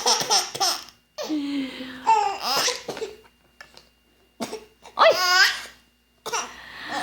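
A baby boy of about seven months giggling and laughing in several short bouts, set off by a woman's mock sneezes.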